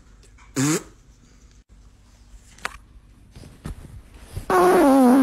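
A loud, drawn-out fart near the end, a buzzing blast of about three-quarters of a second whose pitch wavers and sinks slightly, preceded by a short rising squeak about half a second in.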